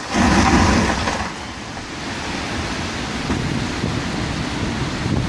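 Strong windstorm wind blowing hard, with a loud gust in the first second settling into a steady rushing.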